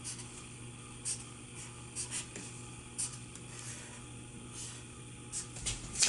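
Felt-tip marker writing on paper: a handful of short strokes spaced about a second apart, over a faint steady low hum.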